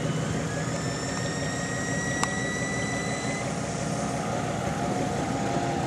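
Vehicle engine running steadily, with a thin whine that rises slowly over the first few seconds, like a 4x4 pulling up a sand dune. A single sharp click sounds about two seconds in.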